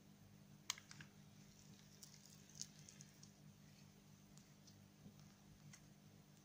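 Faint sticky clicks and crackles of shiny slime being stretched and squeezed between the hands, with a sharper click under a second in, over a low steady hum.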